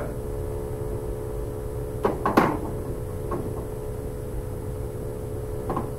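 Steady electrical room hum, with two sharp taps on an interactive whiteboard a little over two seconds in and fainter taps later.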